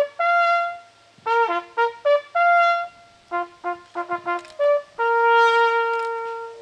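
Small brass hunting horn sounding a call of separate natural-horn notes: a few longer notes, a quick run of short notes in the middle, and a long held note near the end that fades out.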